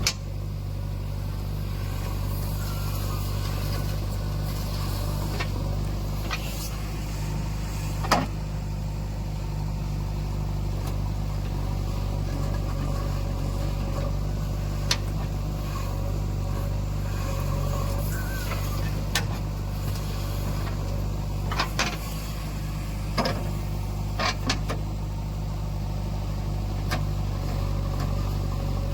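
Heavy diesel engine of a working backhoe loader running steadily at an even pitch, with a handful of sharp knocks scattered through.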